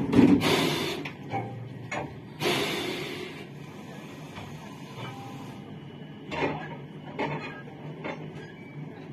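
Compressed air hissing in two short bursts from the brake hoses and cocks being coupled between an EP05 electric locomotive and a car, followed by a few light metal clanks from the coupling gear.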